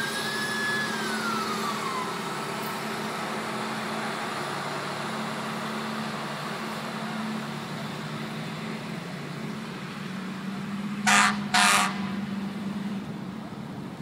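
Fire engines running steadily at a house fire, with a siren winding down in the first two seconds. About eleven seconds in, a vehicle horn gives two short, loud blasts half a second apart.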